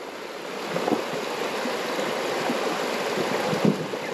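Creek water rushing out through a small hand-built dam that has just been opened, the pond starting to drain. The rush swells over the first second and then runs steadily, with two sharper splashes, one about a second in and one near the end.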